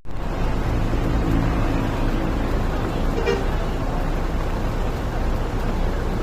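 Tour bus running on the road, a loud steady rumble of engine and road noise, with short horn toots about a second and three seconds in.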